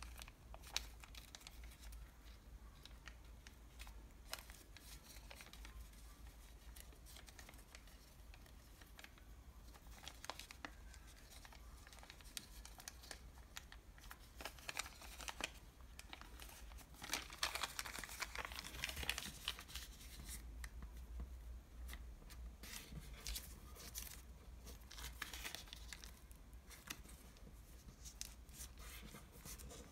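Paper from a KFC french fries bag crinkling and rustling as it is folded and creased by hand, in irregular bursts with small crackles, busiest a little past the middle.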